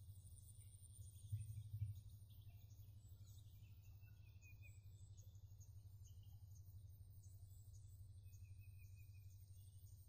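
Faint outdoor ambience: scattered bird chirps and a steady high insect drone over a low, constant rumble, with a couple of low bumps about a second and a half in.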